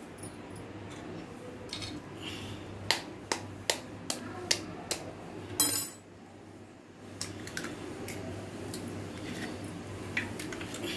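Egg tapped against the rim of a stainless-steel bowl to crack it open: a run of sharp clinks, with a louder knock just before the middle, then a few lighter taps.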